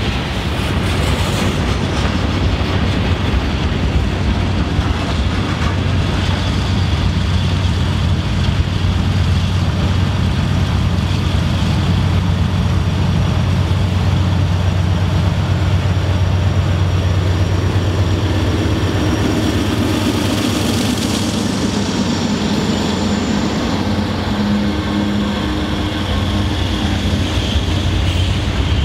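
Freight train rolling past on the rails: a loud, steady rumble with a low hum underneath. A few faint tones come in about twenty-two seconds in.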